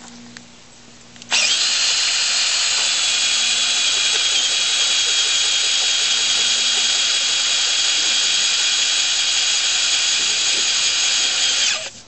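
Cordless drill turning a diamond bit through soft river rock, with water from a hose running onto the cut. It starts about a second in and runs steadily with a high whine over a grinding hiss, stopping briefly near the end.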